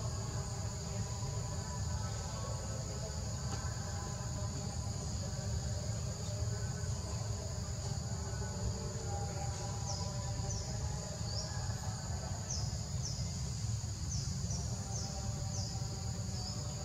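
Steady high-pitched drone of forest insects over a low steady rumble, with a run of short, quick chirps starting about ten seconds in.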